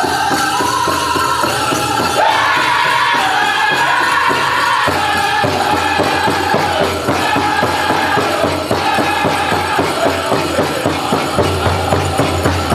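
Powwow drum group singing a chicken dance song in high voices over a steady drum beat, with the jingle of bells on the dancers' regalia. The sung line drops back after about five seconds, and near the end the drumming comes through as an even pulse of about three beats a second.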